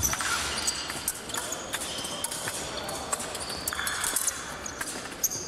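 Fencing shoes squeaking and stepping on the piste, with many short sharp clicks and knocks, some from sabre blades, over steady hall noise.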